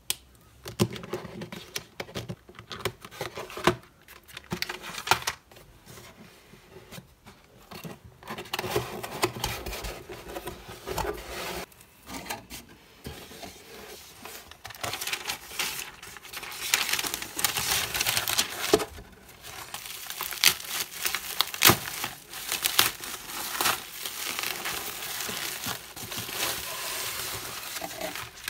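Parcel packaging being handled and unwrapped: crinkling and rustling, with scattered light taps and clicks.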